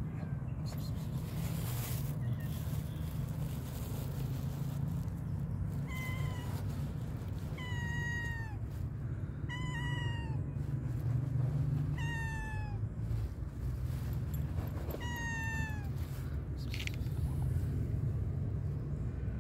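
Tabby cat meowing five times, about every two seconds, each meow sliding down in pitch, as it asks for food. A steady low rumble runs underneath.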